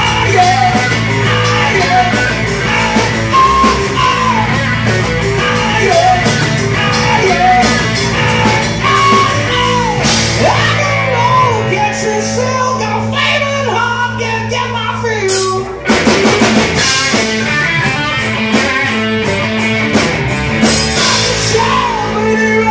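Live rock band playing: electric guitar, bass and drum kit with a singing voice over them. The band stops for an instant about three-quarters of the way through and crashes back in together.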